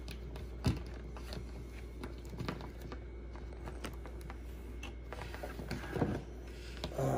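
Sparse light clicks and taps of a plastic NECA Leonardo action figure being handled and posed on a wooden table, the sharpest about a second in and again near the end, over a steady low hum. A brief voice sound comes right at the end.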